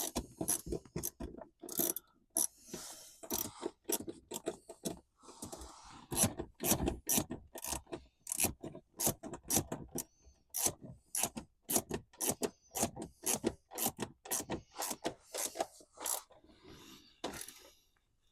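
Hand ratchet wrench clicking in quick runs with short pauses between them as bolts are run down and tightened.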